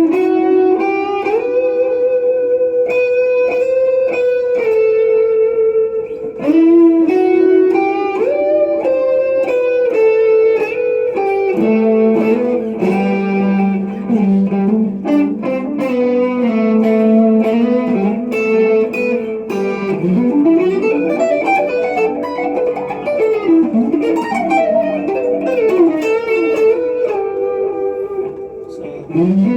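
Electric guitar, a Squier Classic Vibe Stratocaster played through a Zoom G2X Four multi-effects pedal into a Laney mini amp, playing a lead melody of long held notes. From about two-thirds of the way through, the lead turns to string bends that slide up and down in pitch.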